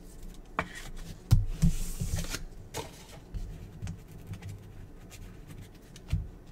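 Trading cards being handled and set down: several light knocks and taps with brief rustling of card stock.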